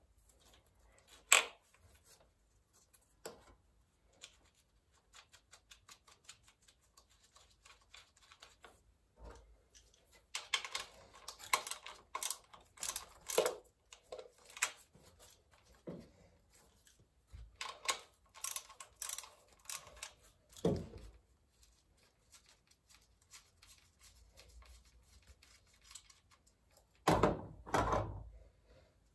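Hand tools and engine parts clicking and clattering during engine disassembly: scattered sharp clicks and small knocks, busier about ten seconds in, with a louder clatter near the end.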